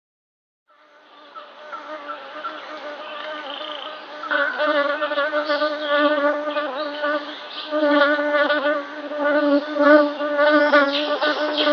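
A bee buzzing in flight: a steady, even-pitched hum that fades in just under a second in and grows louder about four seconds in. It then keeps swelling and dipping in loudness.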